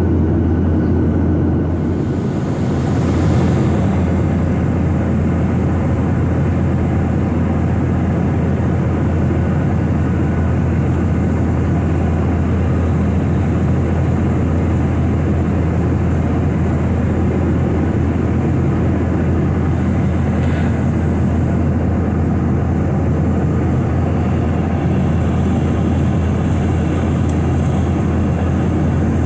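Steady cabin noise of a Boeing 737-800 in flight, heard from a window seat beside the wing: a constant deep hum under the rush of air and its CFM56 engines. A brief swell of hiss comes twice.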